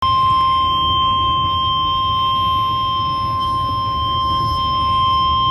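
Emergency Alert System attention tone sounding ahead of a severe thunderstorm warning: a single loud, steady electronic tone held without a break.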